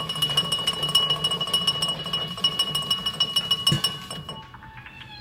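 Rapid run of glass clinks in a drinking glass holding a glow-stick's glass vial, with the glass ringing a steady tone. The clinking stops with a knock a little before the end, leaving a few faint ringing notes.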